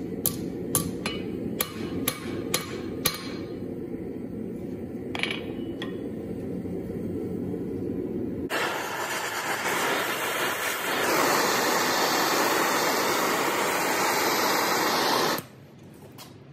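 Hand hammer striking a red-hot steel bar on an anvil while forging a decorative leaf: quick light blows, about three a second, for the first three seconds, then one more blow a couple of seconds later. About halfway through, a loud steady hiss starts suddenly and cuts off sharply near the end.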